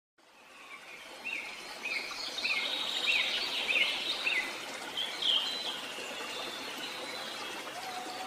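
Forest ambience fading in: birds singing over a steady even hiss. One bird repeats a short chirp about six times, roughly half a second apart.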